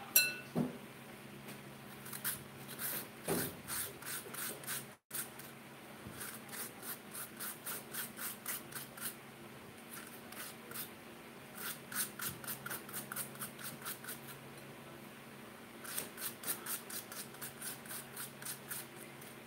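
Metal spoon scraping the soft flesh out of a potato half, in runs of quick strokes about three or four a second. A sharp clink rings out right at the start.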